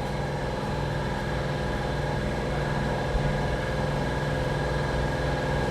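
Toyota Avalon's V6 engine idling steadily, checked for a random multiple-cylinder misfire.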